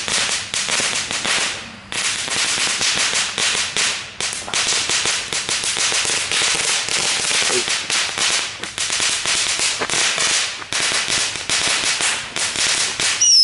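Small consumer ground firework burning, a dense crackle of rapid pops over a hiss, with brief pauses about two and four seconds in.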